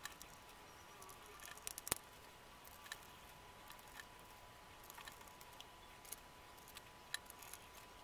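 Faint, scattered small clicks and scrapes of a precision screwdriver turning the screws that fasten a laptop's CPU/GPU heat sink, with one sharper click about two seconds in.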